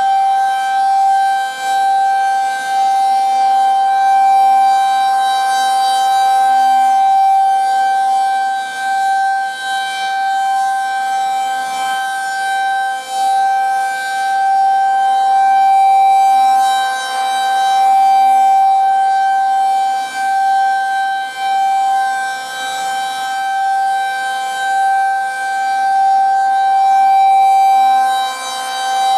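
Federal Signal 2001-SRN rotating outdoor warning siren sounding a loud steady tone on its weekly test. The pitch holds flat while the loudness swells and dips as the horn slowly rotates.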